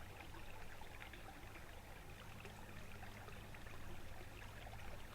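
Small river flowing, a faint, even rush of water, with a steady low hum underneath.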